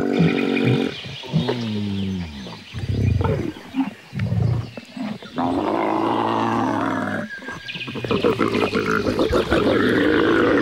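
Camels groaning and bellowing: a series of deep, drawn-out calls, some sliding down in pitch, with rough, gurgling stretches between them.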